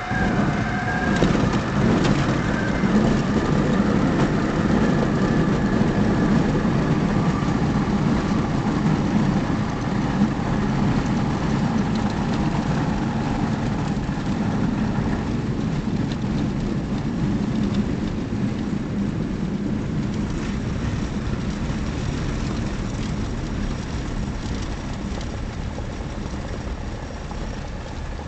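Cessna 172's engine and propeller running at low power, heard from inside the cabin during the landing rollout, over a rumble of the wheels on the grass and gravel strip. A steady high tone sounds for about the first second, and the noise eases slowly as the plane slows.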